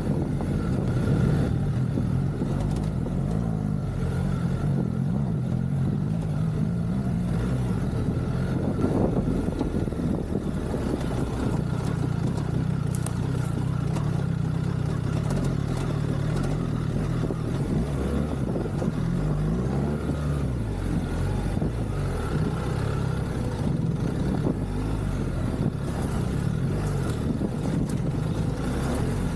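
BMW R1300GS's boxer-twin engine running while the bike is ridden off-road, its pitch rising and falling with the throttle.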